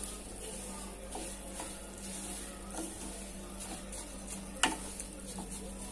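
Wooden spatula stirring and scraping roasted semolina (suji) and sliced almonds through hot ghee in a kadhai, with a soft sizzle of frying. One sharp knock stands out late on.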